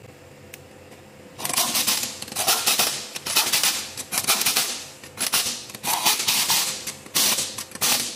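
Pneumatic impact wrench running on a wheel's lug nuts in a series of short bursts, starting about a second and a half in.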